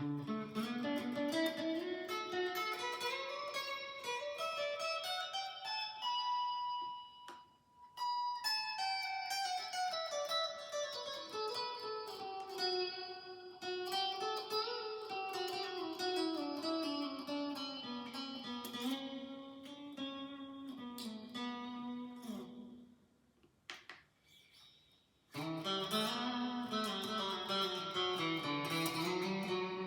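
Fender Player Stratocaster electric guitar played on its neck pickup: melodic single-note runs that climb and fall, with a held high note about six seconds in, a brief break about eight seconds in, and a pause of about two seconds past the twenty-second mark before the playing resumes.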